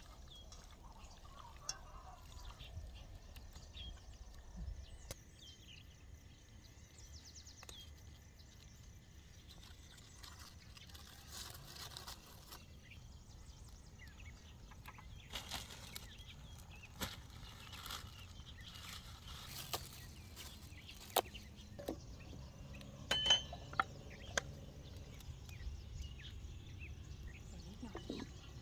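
Scattered knocks, clinks and rustles of someone handling a clay charcoal bucket stove, bottles and a wok set onto the stove, loudest about two-thirds through, over a steady low outdoor rumble.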